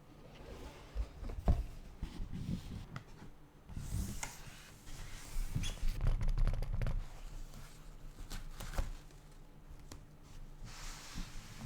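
Keyboard unboxing handling: packaging rustling and scraping, with scattered light taps and a few soft thumps as the box and its contents are handled.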